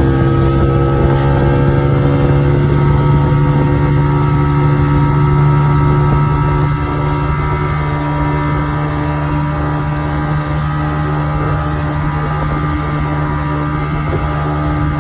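Motorboat engine running steadily, its pitch drifting slowly; it eases slightly about seven seconds in.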